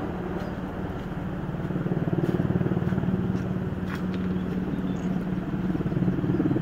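Westland Sea King helicopter in flight: the rapid, even beat of its main rotor over the steady drone of its twin turbine engines, growing louder about two seconds in as it comes round.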